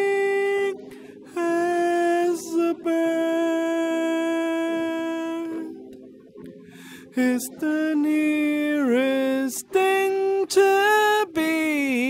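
A single voice singing wordless held notes, unaccompanied. After a pause near the middle it sings shorter phrases with a couple of falling glides.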